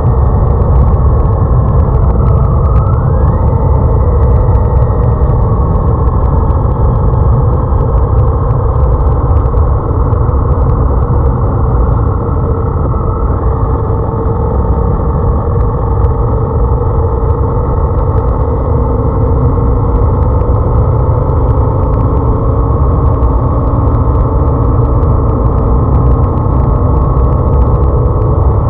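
Motorcycle at road speed heard from an onboard camera: a loud, steady rush of wind over the microphone with the engine's note running underneath. The engine's pitch drifts with the throttle and rises briefly twice, once early and once about halfway through.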